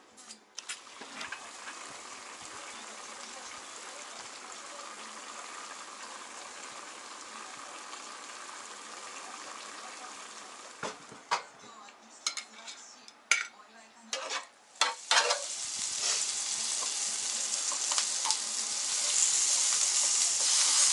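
Food sizzling in a frying pan, with a run of sharp knocks and clicks of a utensil against the pan about halfway through. The sizzling gets louder for the last quarter, where chunks of purple potato are frying in oil.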